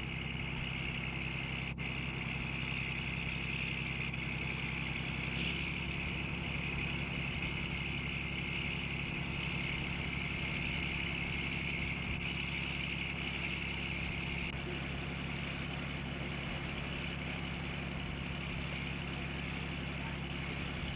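Steady drone of machinery aboard a cod longlining boat: an engine running evenly, with a steady higher mechanical whine over it that eases off about two-thirds of the way through.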